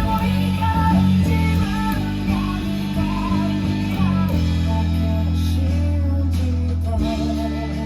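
Bass guitar playing along with a rock band recording in an instrumental passage: held low notes that change every second or so, one held for nearly three seconds in the middle, under electric guitar and drums.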